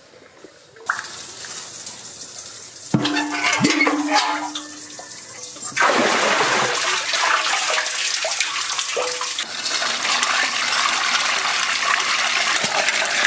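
Water being drawn from a well and poured: a few knocks and a short squeak as a metal bucket on a rope goes down the ring well. From about six seconds there is loud, steady splashing and pouring water as the bucket fills and water is poured over crabs in a steel colander.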